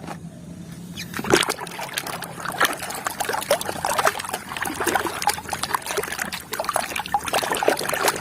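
Water splashing and trickling with a dense run of irregular small clicks and knocks, as toys are handled and washed in water.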